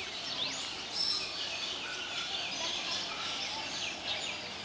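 A dense chorus of many birds calling, with overlapping high chirps and quick rising whistles again and again over a steady background hum of outdoor noise.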